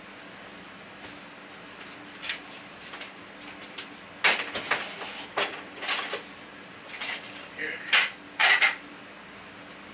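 Metal pots, pans and kitchen utensils clattering and clanking in a series of separate knocks as they are handled in a kitchen cabinet.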